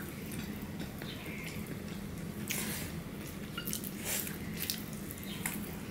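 Quiet wet chewing and lip-smacking of fried rice eaten by hand, with soft squishes of rice being worked between fingers on a plate; small scattered clicks, a little louder around the middle.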